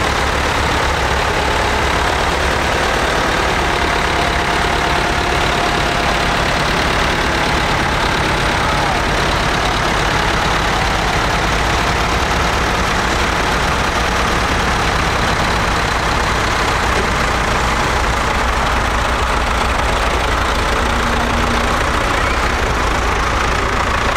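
Vintage Ford tractor engines running at low revs as the tractors pass close by in slow procession, a steady engine hum.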